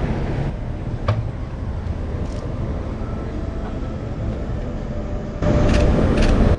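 Busy street ambience with a steady low traffic rumble. A single sharp click comes about a second in, and near the end a louder rush of noise holds two sharp clicks about half a second apart.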